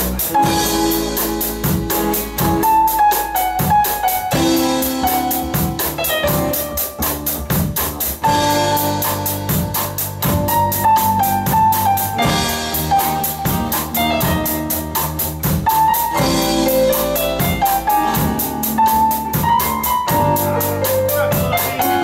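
Live band playing: a Tama drum kit keeping a steady beat on the cymbals, with electric bass, acoustic guitar and a Korg X50 keyboard, and a melody line moving in steps above them.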